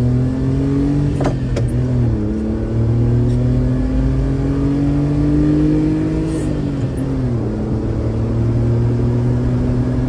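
Honda Acty kei truck's engine and Giga N1 aftermarket exhaust heard from inside the cab while driving, a steady drone. The engine note climbs, drops about a second in with a few light clicks, climbs slowly again, then drops back about six and a half seconds in and holds steady.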